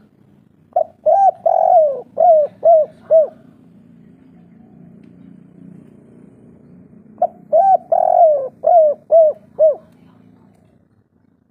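Spotted dove cooing in its 'kuk 3' song: two phrases of about six short arched coos each, with one longer note near the middle. The phrases come about six seconds apart.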